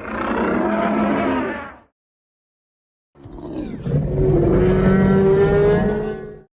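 Two pitched, deep creature calls from a Giraffatitan (sauropod dinosaur) sound effect: a short call of under two seconds, then after about a second of silence a longer, steadier call of about three seconds.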